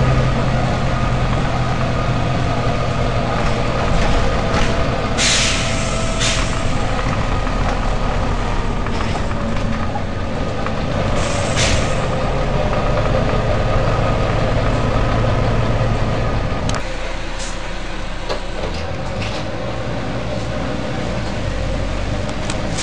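Volvo B9TL bus's diesel engine running, with short bursts of air hiss from its air system, the longest about five seconds in and another about eleven seconds in, and a few brief clicks. The engine hum drops away about seventeen seconds in.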